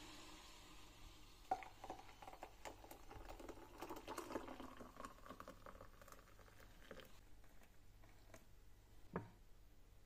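A thin stream of water poured into a glass mug of frothed matcha, splashing and pattering for about five seconds, starting with a click. A single soft thump near the end.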